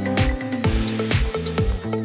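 Background music: an electronic dance track with a steady kick-drum beat about twice a second over bass and synth notes.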